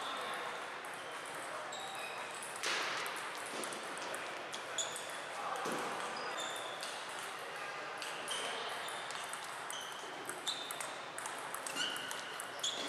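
Table tennis balls ticking off tables and paddles, many short, sharp, high clicks at an irregular pace, coming from several tables in play at once.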